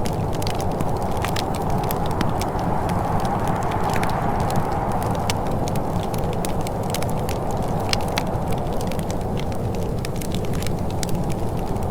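Wood fire crackling, with frequent irregular sharp snaps and pops over a steady low rumble of noise.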